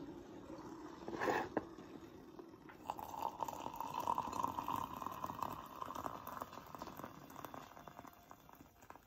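Coffee being stirred with a spoon in a ceramic mug: liquid swirling with small spoon clinks, after a short burst about a second in, fading near the end.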